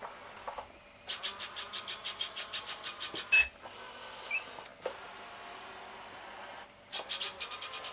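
Small wheeled robot's electric gear motors whirring as it drives over carpet, pulsing about five times a second, then a steadier whine in the middle. A sharp click about three seconds in.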